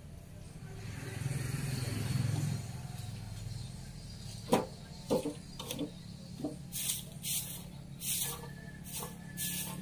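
A low rumble swells and fades over the first few seconds. Then come a few sharp knocks and a run of short scraping strokes, about two a second, from a garden tool worked over bare soil and cut brush.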